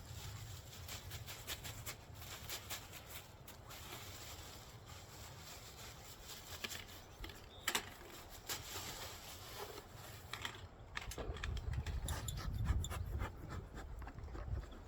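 Wind buffeting the microphone with a low rumble, stronger in the second half, over scattered rustling and handling clicks.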